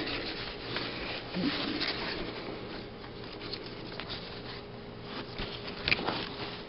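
Stroller seat padding and harness straps being handled: soft rustling with small scattered clicks, and one sharper click about six seconds in.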